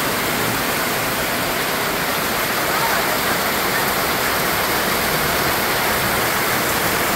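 Heavy rain falling steadily on a corrugated metal sheet roof, heard from underneath as an unbroken hiss. The roof is old and holed, and lets the rain through.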